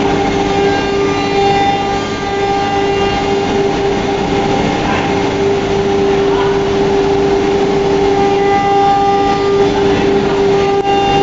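FLDM F3 CNC router's spindle running steadily and cutting a wooden board, a constant high whine over the rough noise of the cut.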